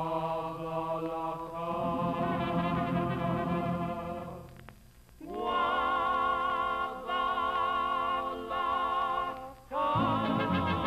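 Background music: long held chords with a wavering vibrato, breaking off briefly about five seconds in and again near the end.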